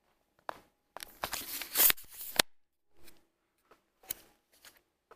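Rustling, brushing handling noise as a handheld camera is carried and moved: a loud burst about a second in that lasts over a second, then a few faint taps and rustles.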